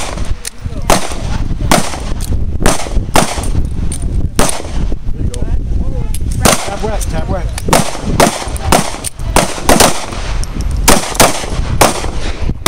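Semi-automatic pistols firing on an outdoor range: an uneven string of sharp shots, about two a second.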